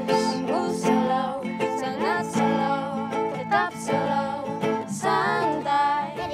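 Ukulele and acoustic guitar playing a song together with a child's singing voice.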